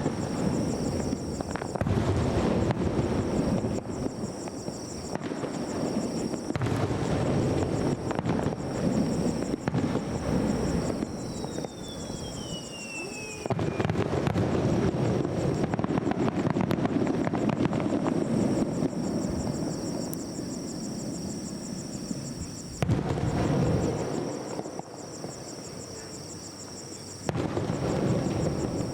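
Aerial firework shells bursting in a rapid series of booms with crackling in between, the volleys swelling and easing several times. About eleven seconds in, a whistle falls in pitch for a couple of seconds before a fresh burst of volleys.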